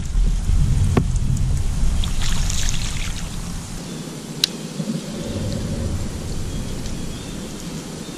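Steady low rumble with water splashing and a few sharp clicks of rod and reel, while a small fish is reeled in and swung up onto a kayak.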